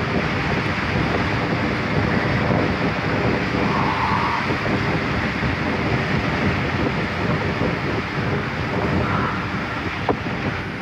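Sea waves breaking and washing over shoreline rocks, with steady wind buffeting the microphone.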